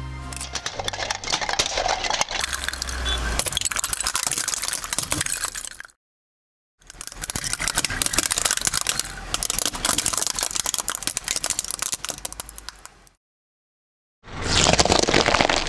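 Objects being crushed under a car's tyre: dense crackling, rattling crunches full of sharp clicks. They come in three separate takes cut apart by sudden silences, and the last, shortest take is the loudest.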